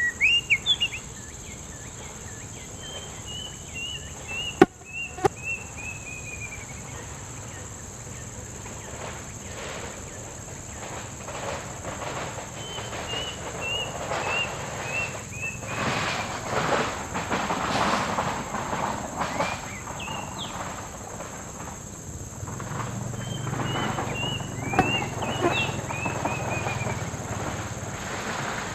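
A bird calls three times, each call a run of about ten short whistled notes stepping down in pitch, over a steady high-pitched insect drone. A single sharp click sounds about five seconds in.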